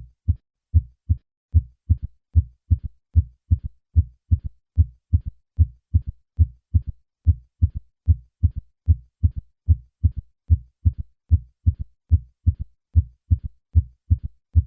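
Heart sounds heard through a stethoscope: a regular lub-dub with short, low thumps. After the first few normal beats a faint third heart sound follows each second sound in early diastole, making a triple, galloping rhythm. This is a ventricular gallop, which in adults over 40 usually indicates heart failure.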